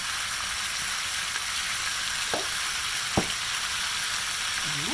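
Chicken pieces sizzling steadily as they brown in a stainless steel skillet over medium-high heat, with two light clicks a little past two and three seconds in.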